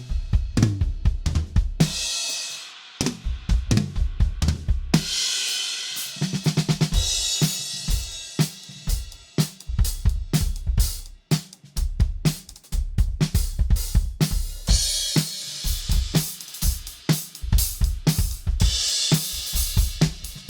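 Ludwig Vistalite drum kit played in grooves and fills: steady kick and snare strokes under hi-hat, with crash cymbal hits ringing out every few seconds. The playing breaks off briefly about halfway through, then starts again.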